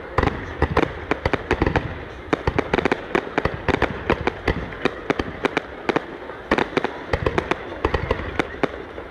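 Fireworks going off: a dense, irregular string of sharp bangs and cracks, several a second, over a steady background rumble.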